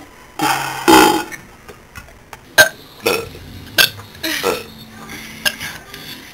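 A girl's loud burp starting about half a second in, followed by a few shorter, quieter sounds and sharp clicks.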